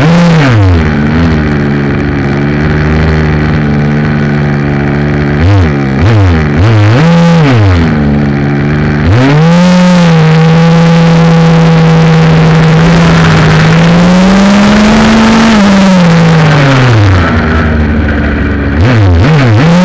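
Two-stroke gas engine of a Redcat Rampage MT 1/5-scale RC monster truck, heard up close from a camera mounted on the truck. It runs at high revs with the throttle chopped and reopened: quick dips near the start and middle, a long steady stretch at speed, a short climb and a deep drop about three quarters through, then more quick blips near the end.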